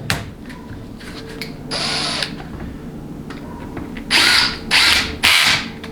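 Power driver spinning Torx 25 bolts into a transmission valve body in four short bursts, one about two seconds in and three in quick succession near the end.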